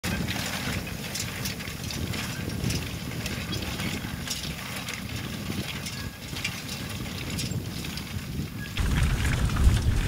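Horse-drawn, ground-driven hay loader working through a windrow: a steady rattle and rustle of loose hay with irregular metallic clicks and knocks from its raking bars and gearing. About nine seconds in the sound changes abruptly to a louder low rumble.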